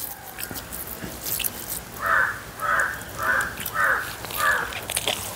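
A crow cawing five times in a row, about two caws a second.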